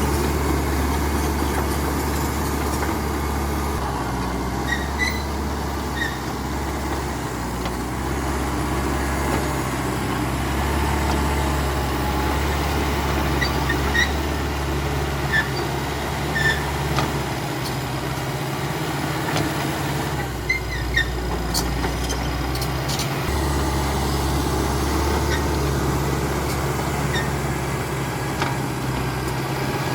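CAT D5K XL bulldozer's diesel engine running steadily under work, with a low drone that dips briefly twice in the middle. Short high squeaks come through now and then.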